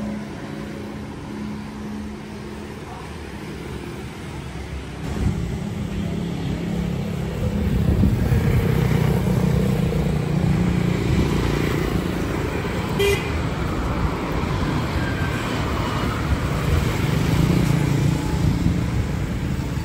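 Road traffic: motor vehicles running and passing, swelling about five seconds in and staying loud, with a short click about halfway through.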